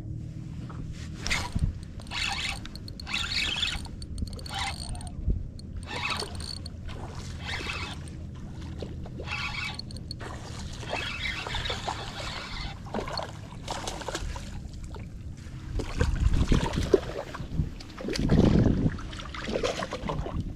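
A hooked fish being fought on a spinning rod: a spinning reel cranked in short spurts, then the fish splashing at the surface beside the boat in the last few seconds, the loudest part.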